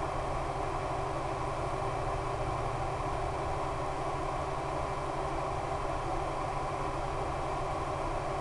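Steady drone of the Hobbyzone Super Cub's brushless electric motor and propeller in flight, mixed with a rushing hiss, unchanging throughout.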